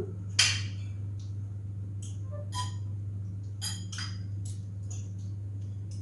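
Metal cutlery clinking and scraping against plates and bowls as people eat, with a sharp clink about half a second in and a quick run of clinks near the middle, over a steady low hum.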